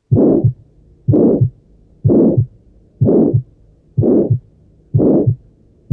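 Heart murmur heard through auscultation: six heartbeats about a second apart, each a first and second heart sound with a loud whooshing murmur filling the gap between them, typical of a systolic murmur.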